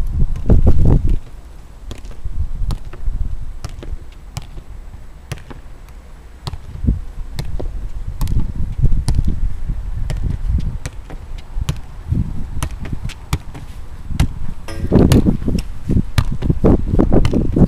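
A football being juggled with the feet: a run of short, sharp taps on the ball, about one or two a second, over a low rumble that swells near the end with bumps close to the microphone.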